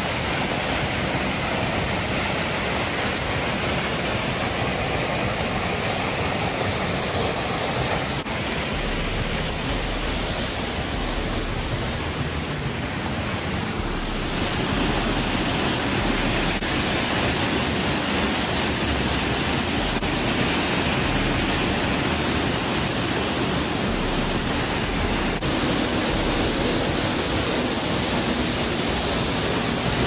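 Waterfall pouring off a rock cliff into a shallow plunge pool: a steady rush of falling and splashing water, a little louder from about halfway through.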